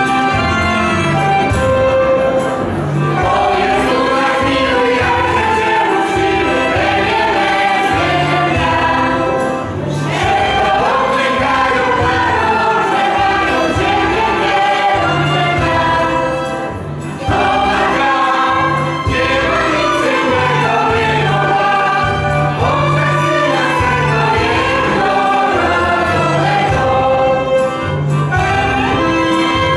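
A mixed folk choir singing a Polish Christmas carol (kolęda) in unison, with violins and a pulsing bass line accompanying. The singing breaks briefly twice, between phrases.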